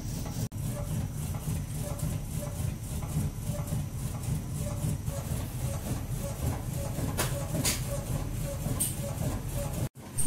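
Shoe-sole flex testing machine running, its arms repeatedly bending insoles. A steady motor rumble with a regular light knocking, and a few sharp clicks late on. The sound cuts out for a moment just before the end.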